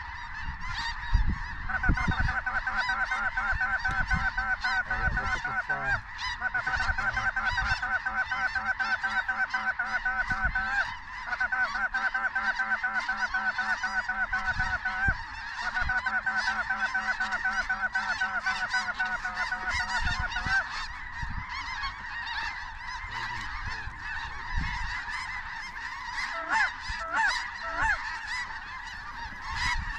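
A large flock of snow geese calling overhead, a dense steady mass of honking. Over it, for most of the first two-thirds, comes a close, rapid and very even run of honks in four stretches of about four seconds each with short breaks between.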